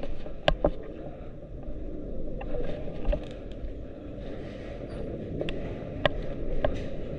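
Low rustling rumble of movement and wind on the microphone during an airsoft game, with about five sharp clicks or snaps: two close together about half a second in and three more near the end.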